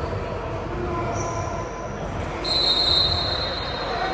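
High-pitched squeals over a background murmur of voices: a short one about a second in, then a louder, longer one from a little past halfway that runs to the end.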